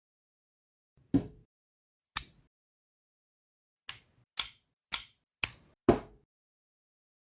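Plastic building bricks clicking as they are snapped together: two sharp clicks about a second apart, then five more in quick succession.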